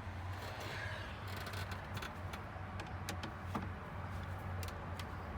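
Scattered small plastic clicks and rattles of a dashboard light switch and its wiring connector being handled, over a steady low hum.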